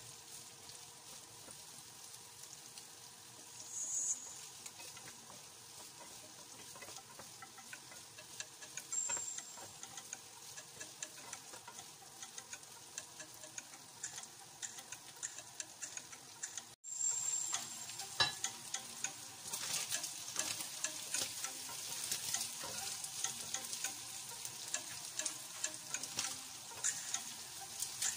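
Bitter melon and onion stir-frying in a nonstick pan: a steady sizzle with the clicks and scrapes of wooden spatulas tossing the food. The sound cuts out for an instant about 17 seconds in, then comes back louder with more frequent clicking.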